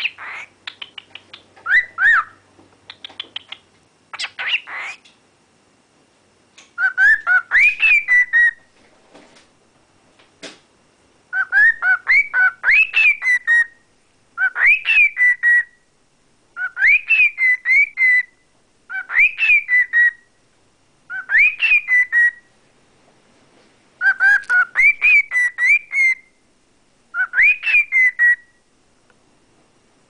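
Cockatiel whistling the same short tune of quick rising and falling notes over and over, about nine times with short pauses between. It opens with a few seconds of short, scratchy chirps.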